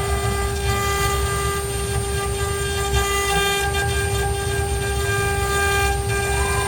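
ART1325 CNC router running: a steady whine holding one pitch over a low rumble, with fainter higher tones coming and going.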